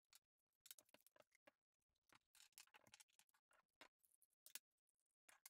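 Near silence broken by faint, scattered clicks and taps of PVC pipe fittings being handled and pulled apart. The sharpest tap comes about four and a half seconds in.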